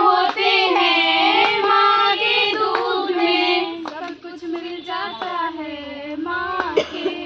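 A group of women singing a Hindi song together in unison on long held notes, with a few hand claps.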